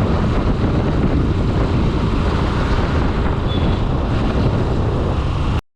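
Wind buffeting the microphone over the steady road and engine noise of a moving vehicle. It cuts off abruptly near the end.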